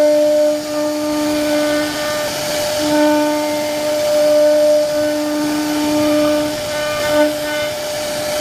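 CNC wood-carving router running: a steady high whine from the spindle, with a lower hum that drops out and returns several times, over a hiss of cutting.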